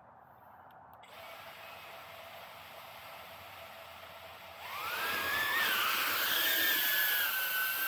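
Electric motors and ducted propellers of a 4S 3-inch cinewhoop quadcopter spinning up for takeoff: a faint steady hum comes in about a second in, then about five seconds in the pitch rises sharply into a loud, steady high whine as the throttle goes up.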